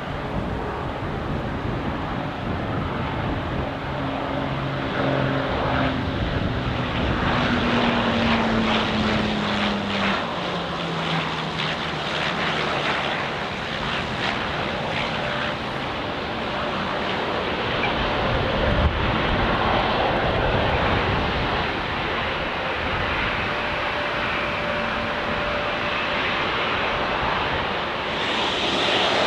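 Twin piston-engine propeller plane landing, its engines droning and falling in pitch as it passes about a third of the way in, over a steady rushing noise.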